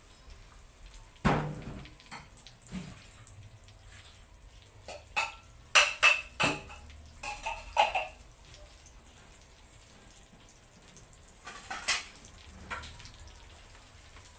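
Kitchen clatter of dishes and utensils clinking and knocking, with some liquid splashing, as canned sliced mushrooms are drained. There is a sharp knock about a second in, a flurry of clinks in the middle, and another knock near the end.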